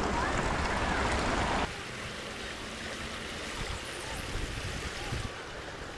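Creek water running over rocks, a steady rush that drops to a softer level a little under two seconds in.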